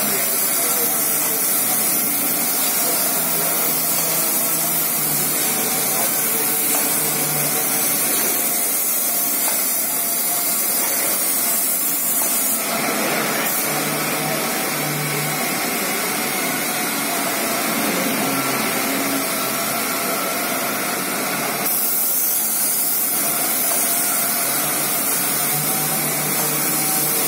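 Paint spray guns hissing steadily as paint is sprayed onto a rail coach body. The hiss changes character for several seconds in the middle.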